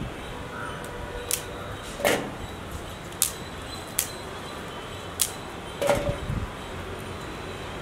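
Cauliflower leaves being snapped off the head by hand: about six crisp, sharp snaps at irregular intervals.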